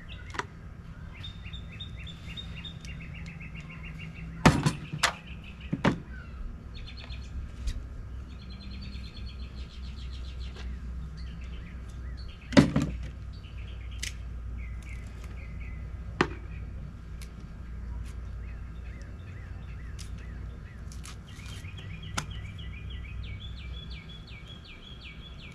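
Songbirds singing in repeated trills over a steady low background hum, broken by a few sharp knocks. The loudest knocks come about four and a half seconds in and again about twelve and a half seconds in.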